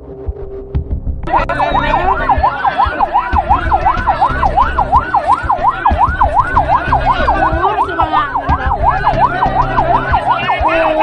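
Electronic siren in a fast yelp pattern, its pitch sweeping up and down about three times a second, starting suddenly about a second in, over a low throbbing pulse.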